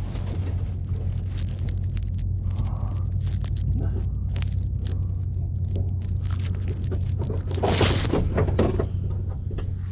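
A low, steady engine drone with scattered metal clanks and knocks. About eight seconds in comes a louder, rough scraping burst.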